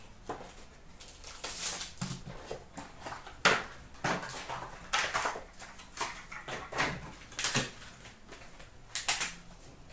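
Hands opening a cardboard hobby box of trading cards and taking out its pack: cardboard scraping and rustling, with a series of sharp knocks and taps as the lid, box and pack are handled and set down on a glass case.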